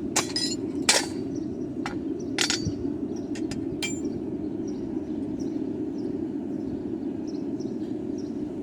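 Blacksmith's hammer striking a horseshoe on the anvil: three sharp blows in the first few seconds with a few lighter clinks, then no more strikes. A steady low rushing hum runs underneath throughout.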